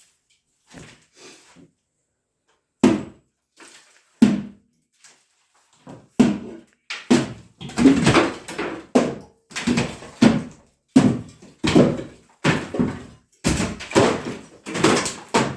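Repeated heavy blows against a kitchen wall being demolished: a few separate knocks at first, then a steady run of about two strikes a second from roughly six seconds in.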